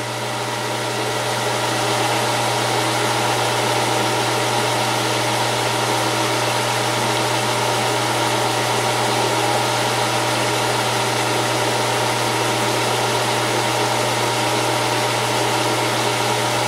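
Geared-head metal lathe running at its 460 rpm setting: a steady, loud low hum with a whine of gears above it. It comes up to speed over the first couple of seconds, then holds even.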